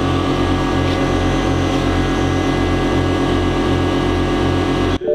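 Background music with a heavy, regularly repeating bass line, cut off for an instant about five seconds in.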